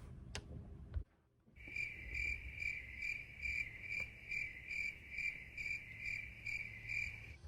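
Cricket chirping: an even, pulsed chirp about two and a half times a second, starting after a second and a half and stopping abruptly just before the end.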